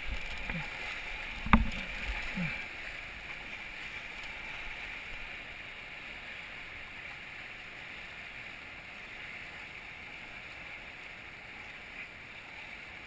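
River water rushing past an inflatable raft on a rapid-strewn stretch, a steady even hiss. A single sharp knock about a second and a half in, with a few softer thumps around it.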